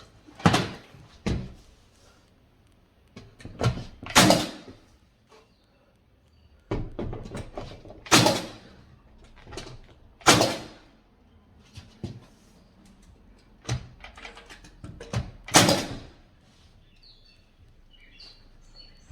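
About a dozen sharp knocks and thuds, unevenly spaced, from door stop molding being fitted and fastened to a wooden door jamb.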